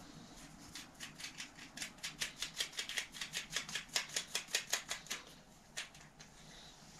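Bicycle rear wheel turned by hand, its Shimano Nexus hub's freewheel clicking in a quick, even run of about six clicks a second that grows and then fades out.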